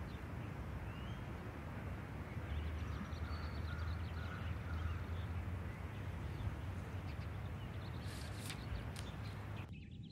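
Steady outdoor ambience, a low rumble and hiss with faint bird chirps, then a few sharp clicks about eight and a half seconds in. The background cuts out abruptly near the end.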